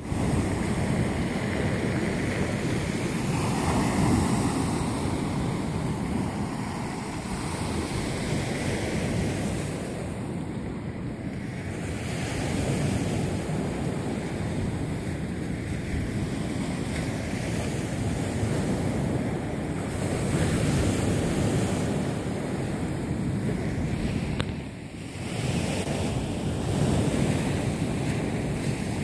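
Surf breaking on a beach, mixed with wind buffeting the microphone, as a steady rushing noise; it drops away briefly near the end.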